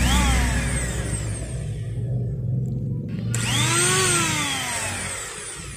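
Bull BL8954 hand angle grinder, fitted with a Makita 9500N-type armature, run briefly twice: its whine winds down just after the start, then spins up again about three seconds in and coasts down. This is a test run after the armature swap; the disc now turns counterclockwise, the correct way, with no sparking at the brushes.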